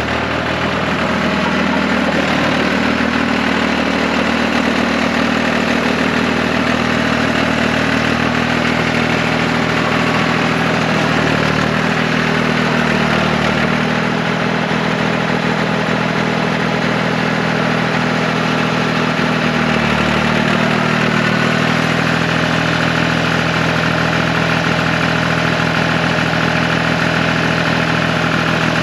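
John Deere 350B crawler dozer's engine running steadily as the machine is driven, its note dipping briefly twice, once about halfway through and again about two-thirds of the way through.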